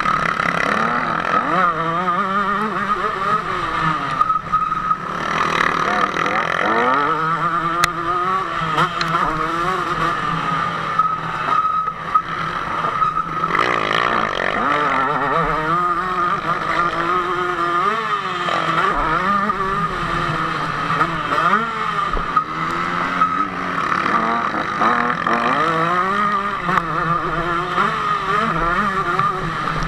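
Two-stroke KTM 150 SX motocross bike engine at race pace, revving up and dropping back again and again as the rider accelerates, shifts and brakes through corners.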